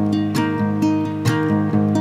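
Background song, acoustic guitar strumming steadily in an instrumental pause between sung lines.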